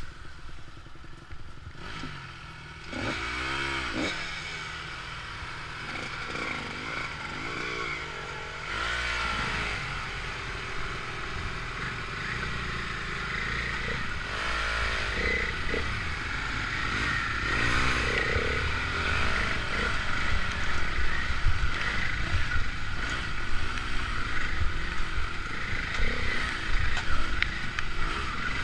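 Enduro motorcycle engine working up a rough, rocky trail, its revs swinging up and down several times as the throttle is blipped over obstacles, with clattering and knocks from the bike jolting over rocks.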